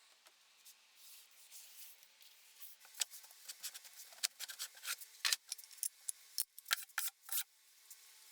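A run of short, sharp scraping strokes at an irregular pace: faint and sparse at first, then louder and closer together from about three seconds in.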